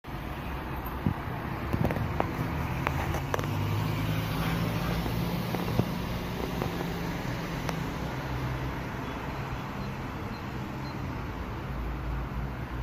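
Street traffic with a car engine running steadily, and a few sharp clicks in the first few seconds and one more about six seconds in.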